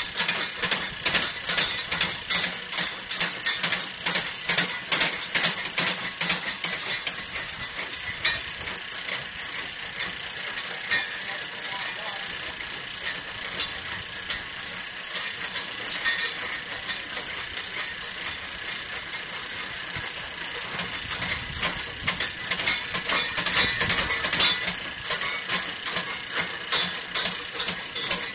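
Drum drain-cleaning machine snaking a plugged drain line, its spinning steel cable rattling and clicking rapidly and unevenly in the cleanout pipe. The clatter is louder near the start and again for a few seconds toward the end.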